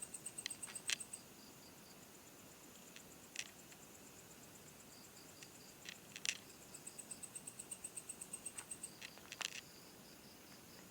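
Crickets chirping in fast high-pitched pulse trains, about six or seven pulses a second, that stop and start again, over a steady faint insect trill. A few sharp clicks cut in, the loudest sounds here.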